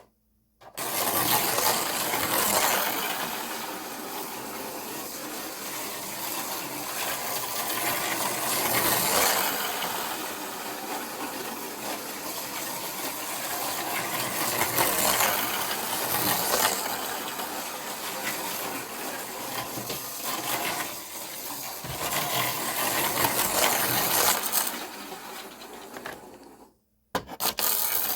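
Micro slot cars running laps on a plastic track: small electric motors buzzing while the cars rattle and their pickup brushes rub along the rails, getting louder and quieter as they go round. The noise cuts off suddenly near the end, then a brief burst follows.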